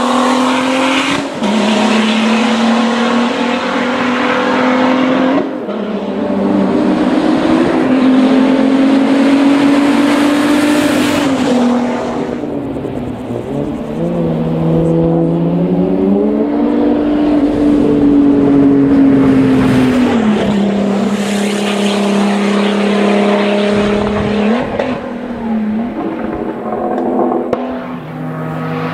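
Turbocharged 2.8-litre V6 engine of a VW Golf IV hillclimb race car running at full load, its note climbing steadily through the revs and dropping back at each gear change, over and over as the car powers up the course.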